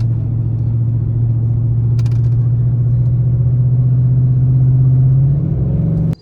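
Chevy Silverado 1500 engine, breathing through an S&B cold air intake and a Corsa Sport exhaust, pulling under load. Its steady drone climbs slowly in pitch as the truck accelerates, rises more sharply near the end, then cuts off suddenly.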